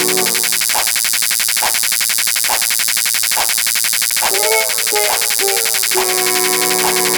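Electronic music with a fast buzzing, chirping texture over a regular beat of about one stroke a second. The held synth tones drop out just after the start and return near the end, and a short run of pitched notes plays in the middle.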